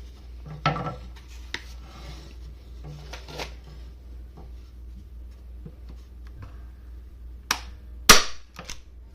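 Arrow T50 manual staple gun fired into a pine board: soft handling knocks, a sharp click, then a loud spring-driven snap about eight seconds in as the staple is driven fully into the wood.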